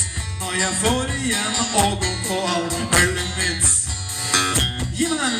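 Live rock band playing: electric guitar and drums, with a voice singing over them.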